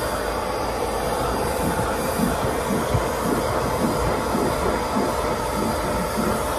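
Carpet extractor running steadily with a faint motor whine, its hand tool drawn back and forth over carpet in repeated scraping strokes.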